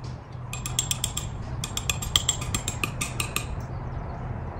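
Rapid ratcheting clicks, about ten a second, in two runs: a short one about half a second in and a longer one of nearly two seconds.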